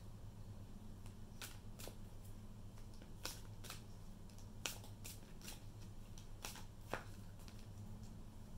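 A tarot deck being shuffled by hand: about ten sharp, irregular card snaps and flicks spread over several seconds.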